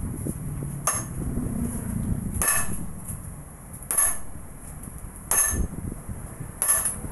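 Five heavy metal-on-metal blows, about one every one and a half seconds, each with a short ring: a steel pipe rammed down onto a truck's steering knuckle during kingpin replacement.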